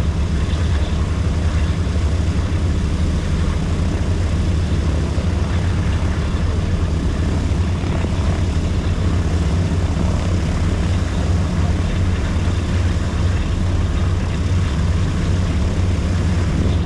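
B-17 Flying Fortress's Wright Cyclone nine-cylinder radial engines and propellers running steadily: a loud, even, low drone that holds without change.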